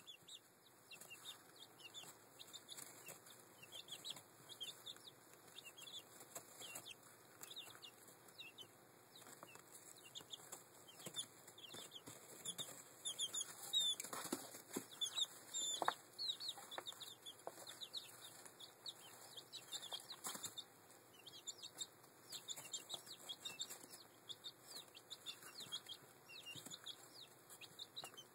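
Young chicks, about two weeks old, peeping continuously with short falling cheeps, while they peck and scratch around a corncob in wood shavings, giving scattered light clicks and rustles. The peeping and scuffling are busiest and loudest about halfway through.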